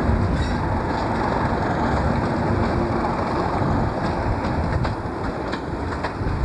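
Class 37 diesel locomotive 37 408 with its English Electric V12 engine running as it moves past hauling its coaches. Wheels click over rail joints several times.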